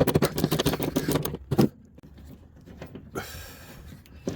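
Hands and tools working on the seatbelt mount: a rapid clatter of clicks and scrapes for about a second and a half, then quieter scraping.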